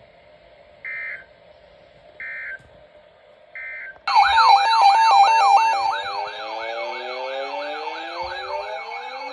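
Three short bursts of Emergency Alert System data tones, the end-of-message code that closes the weather radio broadcast. About four seconds in, a much louder siren-like alert takes over, its pitch wailing up and down two to three times a second over steady tones.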